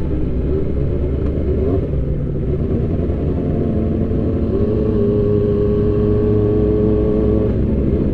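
Sport motorcycle engine running while being ridden, heard from the rider's seat with heavy wind rumble on the microphone. The engine note wavers at first, then holds steady from about halfway through until near the end.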